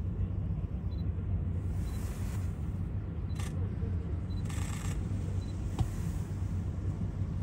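Steady low outdoor rumble. Two brief camera-shutter sounds come a little past the middle: a sharp click, then a second, half-second shutter sound about a second later.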